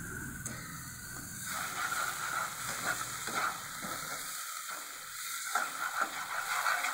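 Onion-tomato-garlic-chilli masala frying in mustard oil in a non-stick kadai, sizzling steadily. Partway through, a spatula begins scraping and stirring it round the pan in repeated strokes.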